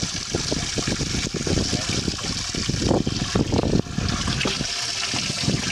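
Lake water splashing and lapping against a small fishing boat, over uneven low rumbling and knocking on the microphone.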